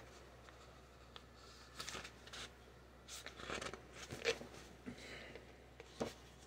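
Faint paper handling: a few short, soft rustles and flicks as a paperback manga volume's pages are fanned through and the book is turned in the hands.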